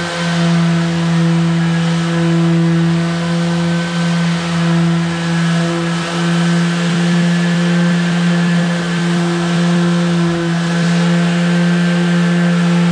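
Cordless palm sander running steadily while being pushed across a plywood desk top, a constant motor hum over the hiss of sandpaper on wood.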